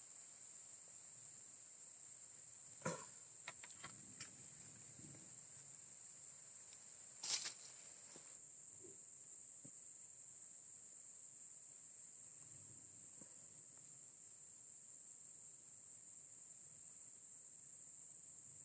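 Insects giving a steady, high-pitched chirring throughout. A few light clicks come about three to four seconds in, and a sharper click at about seven seconds.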